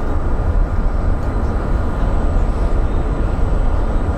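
Steady low rumble heard aboard a moving ship, strongest deep in the bass, with a faint hiss above it and quick flickers in loudness.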